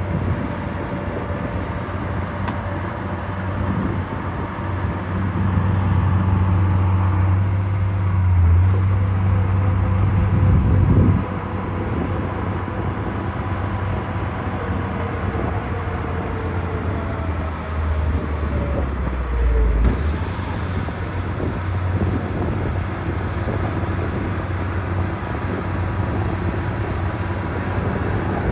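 Heavy diesel engines of earth-moving machinery running under load. The engine sound swells into a loud stretch that cuts off sharply partway through, and there is a second, shorter surge with changing pitch later on.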